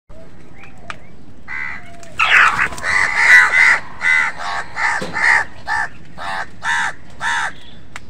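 House crows cawing: a loud, overlapping burst of harsh caws from several birds, then single caws about every half second that end shortly before the close.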